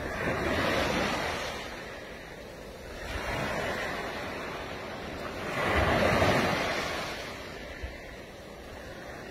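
Small waves breaking and washing up a sandy beach, swelling and fading about every three seconds, the loudest surge about six seconds in. Wind buffets the microphone underneath.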